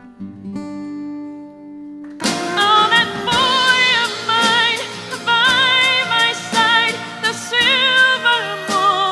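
Music: soft held instrumental chords, then about two seconds in a fuller band comes in and a woman sings long notes with strong vibrato.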